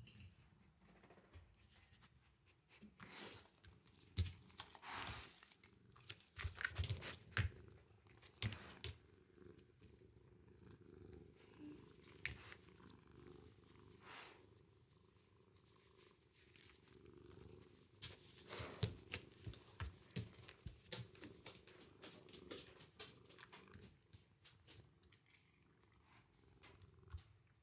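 Orange tabby cat purring steadily, with scattered rustles and knocks from movement close to the microphone.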